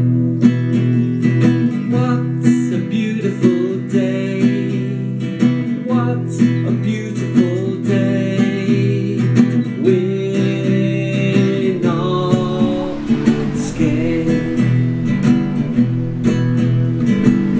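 Small classical guitar strummed in a steady rhythm, with a man singing along in places. About twelve seconds in, a rushing wind-like noise comes in under the guitar.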